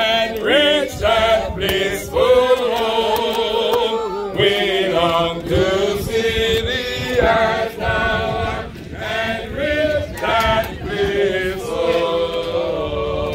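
Unaccompanied hymn singing: a man singing through a handheld microphone, joined by other voices, in slow phrases with long held notes.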